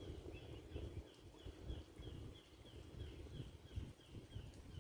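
Wind buffeting the microphone in uneven gusts. Over it, a high, short chirp repeats steadily about four times a second from a calling animal.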